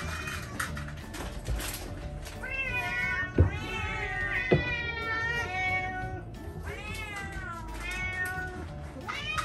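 Domestic cats meowing, long calls that rise and fall in pitch, one after another. Two sharp knocks about a second apart near the middle.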